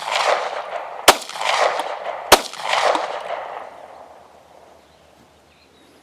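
Gen 4 Glock 17 9mm pistol firing two shots about a second apart, each followed by a ringing echo, then falling silent. The pistol, soaked in water with its lubrication washed off, stops firing short of its five rounds: a malfunction.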